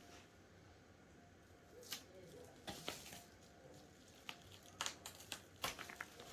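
Faint, scattered clicks and rustles of a monitor and its packaging being handled, more frequent in the second half.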